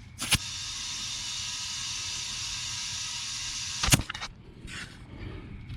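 Compressed air hissing steadily into a low tractor front tire through an air chuck for about three and a half seconds, topping it up from 5 psi. There is a click as the chuck goes onto the valve and a sharper click as it comes off.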